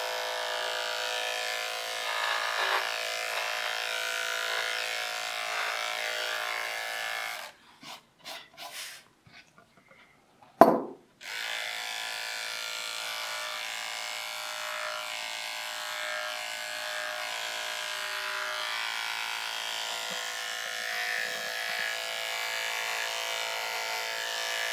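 Electric dog-grooming clipper with a detachable blade running with a steady buzzing hum as it shaves a small dog's leg and foot. The hum stops for about three seconds roughly a third of the way in, and a sharp knock comes just before it starts again.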